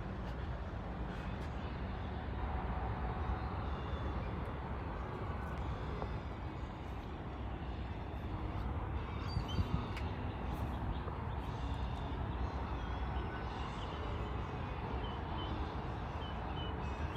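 Steady outdoor background rumble, with a few faint short bird chirps near the end.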